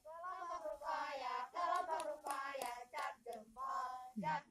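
Group of girls singing a short, chant-like camp song in phrases with brief pauses between them.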